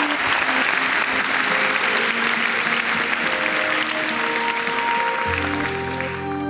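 Audience applauding over music of held notes; a deep sustained note joins near the end.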